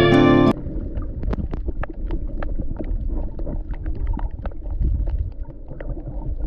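Guitar music cuts off abruptly about half a second in, leaving underwater reef sound: a low rumble of moving water with scattered sharp clicks and crackles from the reef.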